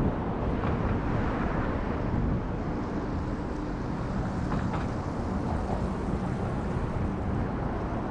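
Street traffic on a city avenue: a steady rumble of cars driving past, mixed with wind noise on the microphone.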